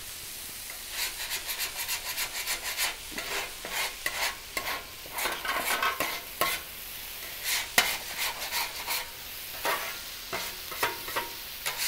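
A steel griddle scraper scraping the hot steel cooktop of a Blackstone flat-top griddle in many short, irregular strokes, lifting off stuck-on food residue. Food sizzles on the griddle under the scraping.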